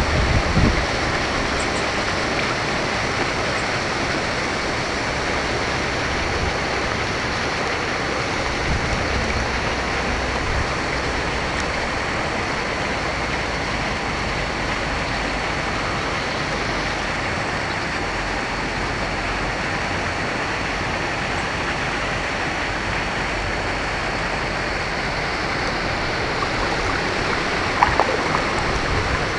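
Steady rushing-water noise with a faint thin high tone running through it. There is a brief knock near the end.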